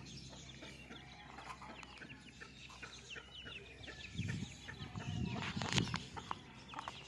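Chickens clucking quietly with many short, high calls, and some rustling and a sharp click about four to six seconds in.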